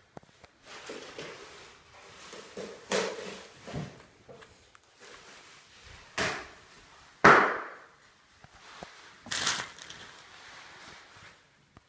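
Handling noises of a hard acrylic display case: about five separate knocks and clunks with light rubbing between them, the loudest a sharp knock about seven seconds in.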